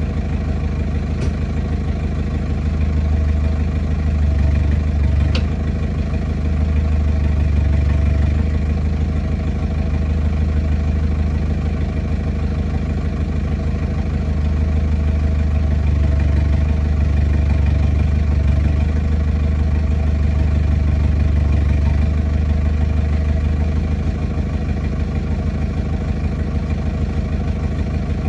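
A heavy-equipment diesel engine runs steadily at a low, even speed. Its deep rumble swells and eases a few times, as if under changing load, and two faint clicks come early.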